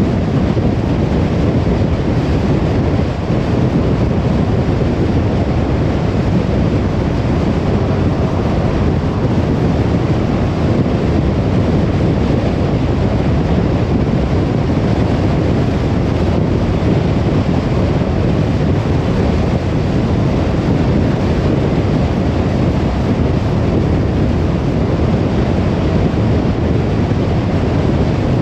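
Steady low rumble of a car driving along a road: tyre and road noise with the engine underneath, even and unchanging.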